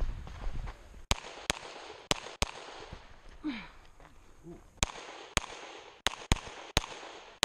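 Glock 34 9mm pistol fired at close range to the microphone, in quick pairs: four shots, a pause of about two seconds, then six more shots.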